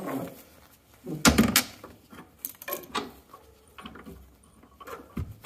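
Metal smoke box door of a Trevithick steam locomotive being shut with a loud clank about a second in, followed by lighter clinks, rattles and a chain jangling as the door is fastened.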